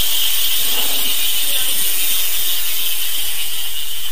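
Brand-new six-pawl bicycle rear hub freewheeling, its pawls clicking over the ratchet teeth so fast that they merge into a steady, loud buzz.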